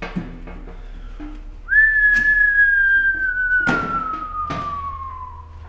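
A long whistled note that begins about two seconds in and slides slowly down in pitch for nearly four seconds. Under it are a few light knocks as an aluminium cylinder head is handled.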